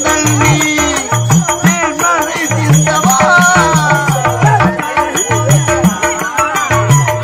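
Live instrumental folk music: a hand drum played in a steady rhythm of low strokes that bend in pitch, under a wavering melodic line.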